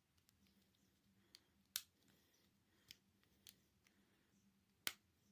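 Five or so small, sharp clicks and taps at uneven intervals, two of them louder, from small phone parts and tools being handled during reassembly of a Samsung Galaxy S8.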